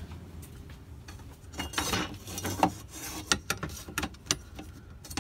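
Handling noise of an aluminium sail track against a plywood bed base: a rustling scrape, then a run of sharp clicks and taps.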